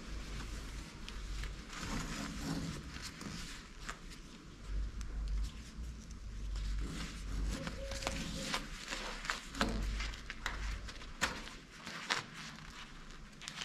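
Scattered clicks and scrapes of galvanized wire and a short steel rebar spacer being handled and pushed into a hole in a rough-plastered masonry wall by a gloved hand, the clicks coming thicker in the second half, over a low rumble that comes and goes.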